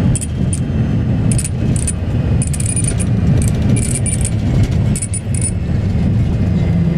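Road vehicle's engine and tyre rumble heard from inside, steady and loud, with bursts of light metallic jingling, like keys or loose items rattling, over the first five seconds or so.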